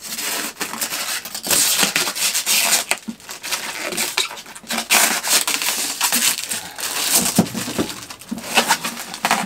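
Clear plastic wrapping crinkling and rustling as it is worked off a resin 3D printer's cover, in a steady run of crackles.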